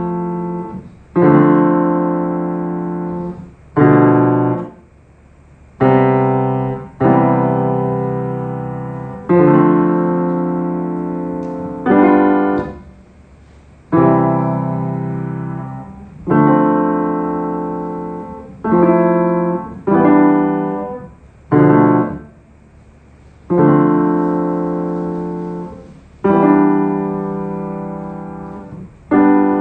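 Piano playing slow, sustained chords, one struck every one to two seconds and left to ring and fade before the next.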